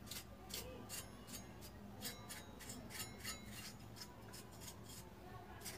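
A brush scrubbing dust off a DVD player's circuit board: short, scratchy strokes, about three a second, unevenly spaced.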